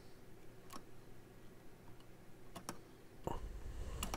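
A few light, sharp clicks of pliers gripping and working loose the broken remains of a small trimmer potentiometer on a circuit board, with a low handling rumble and a cluster of clicks about three seconds in.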